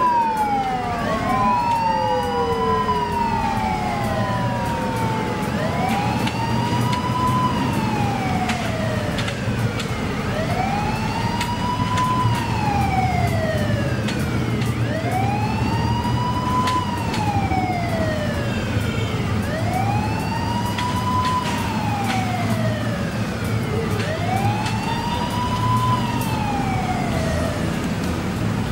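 Motorcade sirens wailing. One siren rises and falls slowly about every four and a half seconds, and a second siren slides down in pitch near the start. A low engine rumble runs beneath.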